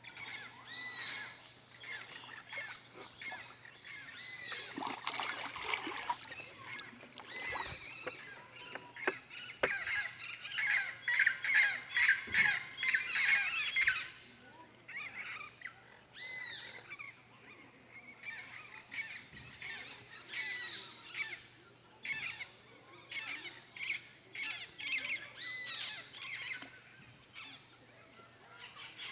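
Several birds calling, with short repeated calls that rise and fall in pitch, thickening into a dense chorus about ten to fourteen seconds in.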